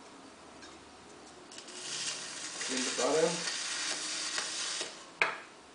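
Wet clay being worked on a potter's wheel: a hissing scrape that lasts about three seconds, followed by a sharp click.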